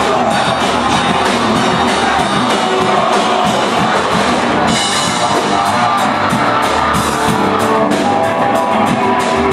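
Rock music with electric guitar and drum kit, loud and steady.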